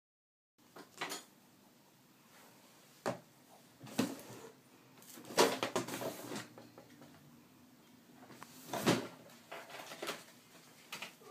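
Maltese dog chewing a dental chew treat: irregular sharp crunches and clicks at uneven intervals, the loudest about halfway through and again about three-quarters of the way through.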